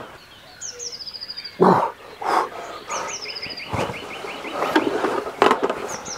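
Songbirds singing: a short high trill sliding down, heard three times, and a fast run of even notes about three seconds in. Between them come short rustles and knocks as a rain jacket and weigh sling are handled during the weighing.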